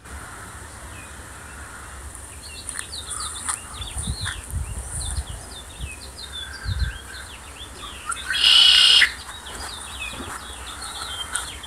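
Small birds chirping outdoors, many short quick chirps overlapping, with a louder, harsher call lasting under a second about eight and a half seconds in. A few low rumbles come through around the middle.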